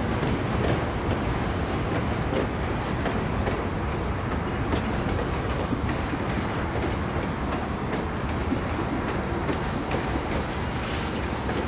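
Freight cars rolling past: a steady rumble of steel wheels on rail, with scattered clicks.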